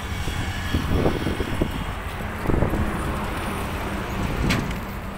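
Road traffic going by on a wide highway: motorbikes and cars passing, with a steady low rumble and a short sharp click about four and a half seconds in.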